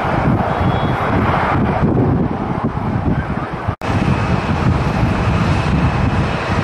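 Heavy wind buffeting the microphone over the steady noise of distant jet engines. The sound drops out for an instant a little under four seconds in; after that a faint, steady high engine whine comes through beneath the wind.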